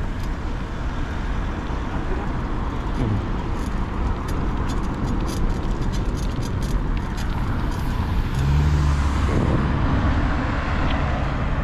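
Road traffic with a steady rumble of cars, one going by with a falling pitch about three seconds in, and a louder low engine hum from a vehicle passing around eight to nine seconds in.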